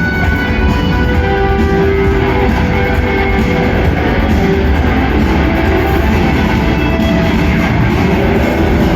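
Rock band playing live, a loud guitar-led instrumental passage with no vocals.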